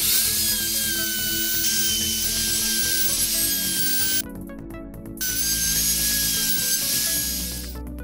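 Electric plunge router running with a steady high whine as its bit cuts pockets into a pine board. It runs twice, with a pause of about a second in between, and cuts off near the end.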